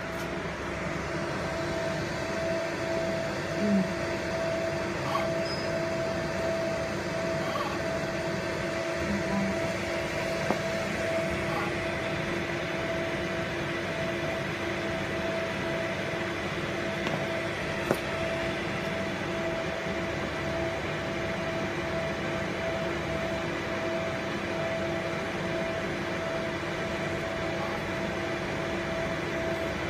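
Steady machine hum from a running laser marking machine, with a low tone and a second tone about an octave higher, and a few faint clicks.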